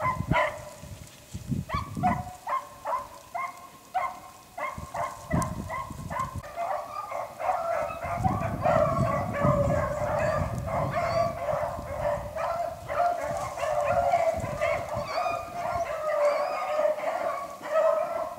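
A pack of beagles baying as they run a rabbit's trail: many short, repeated yelping cries, sparse at first and building into a steady overlapping chorus from about six seconds in.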